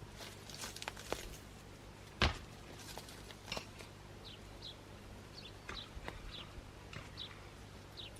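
Scattered light knocks and clicks, the loudest a single sharp knock about two seconds in, with short high chirps of small birds through the second half.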